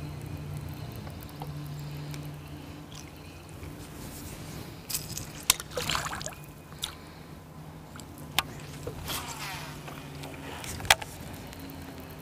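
Electric trolling motor humming steadily under the boat, with a water splash at the bow about five to six seconds in and a few sharp clicks scattered through.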